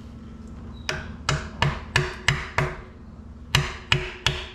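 A mallet tapping a steel mounting bolt through a mid-drive motor's mount: nine sharp strikes at about three a second, six and then three more after a short pause, each with a brief metallic ring.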